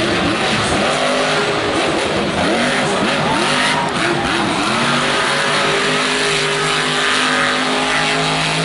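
Monster truck's supercharged V8 engine revving, its pitch swinging up and down several times, then running at a steadier high speed in the second half.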